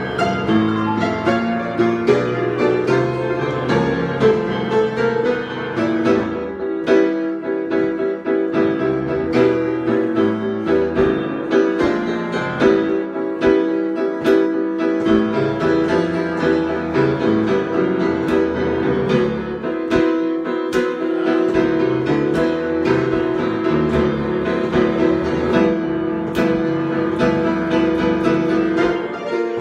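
Solo piano improvising, a continuous flow of chords and melody with a middle-register note repeated over and over through much of the passage.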